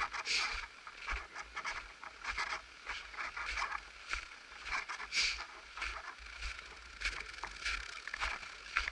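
Footsteps crunching on packed snow at a walking pace, about two steps a second, each with a soft thud.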